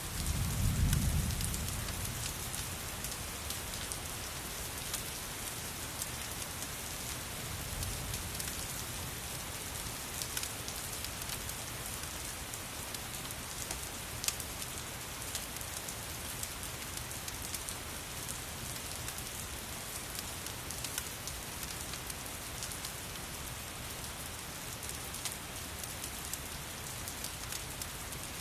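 Steady rain falling, with scattered sharp ticks of drops. A low rumble of distant thunder swells about a second in, and a fainter one comes around eight seconds.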